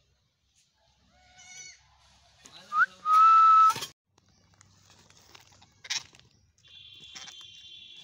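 Rose-ringed (Indian ringneck) parakeets calling: a short squawk about a second and a half in, then a loud, held whistle-like call around three seconds in that cuts off abruptly, and a harsher, raspy call near the end.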